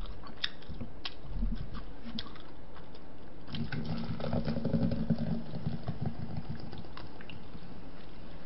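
Soda poured from a large plastic bottle into a cup, the fill running for about three seconds from a few seconds in and rising in pitch as the cup fills. A few light clicks and knocks come before it.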